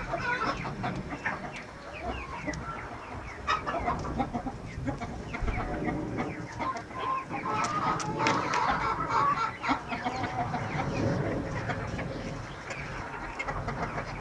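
Silkie chickens clucking, many short calls overlapping from several birds.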